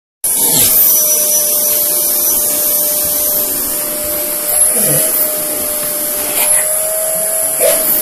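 Vacuum cleaner running with its hose nozzle in a St Bernard puppy's mouth, a steady whine with a hiss of rushing air. The pitch shifts briefly a few times as her lips and jowls are sucked into the pipe and the airflow is choked.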